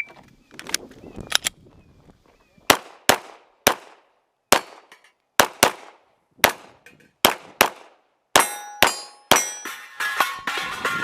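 Glock 34 9mm pistol firing a fast string of about twenty shots, singles and close pairs with short pauses between them. In the last few seconds, steel targets ring after hits.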